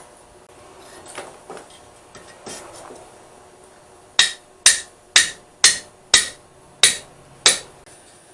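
Blacksmith's hammer striking steel on an anvil: a few soft knocks, then, about halfway through, seven sharp ringing blows at roughly two a second.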